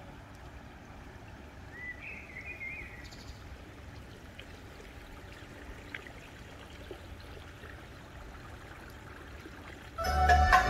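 Faint, steady outdoor ambience with a soft, even rushing noise, and a short bird chirp about two seconds in. Near the end, loud music starts suddenly.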